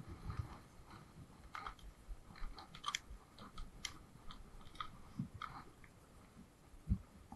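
Scattered small clicks, crackles and rustles of close-up handling, with one dull low thump about seven seconds in.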